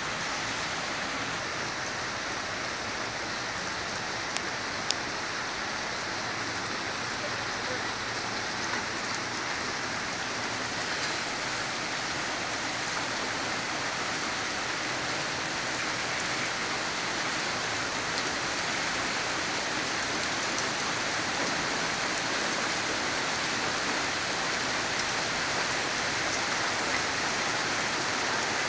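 Steady rain falling, with two sharp clicks about four and five seconds in.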